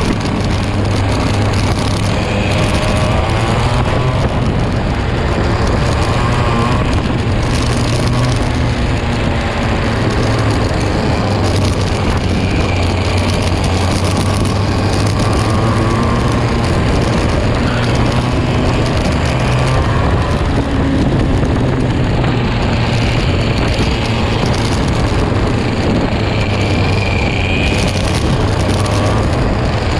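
Onboard sound of a KA2 junior racing kart's 100cc two-stroke engine at racing speed, its pitch rising and falling as it accelerates down straights and lifts for corners, with other karts running close behind.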